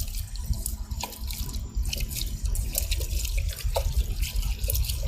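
Water splashing and dripping, with irregular small plops and crackles over a low rumble.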